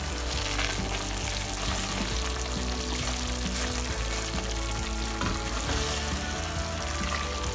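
Thick garlic and tomato chutney sizzling steadily in a frying pan as a silicone spatula stirs it. The oil is starting to separate out as the paste cooks down and thickens.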